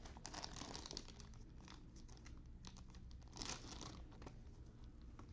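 Plastic trading-card pack wrapper crinkling as it is handled and torn open, in two short spells with small clicks between.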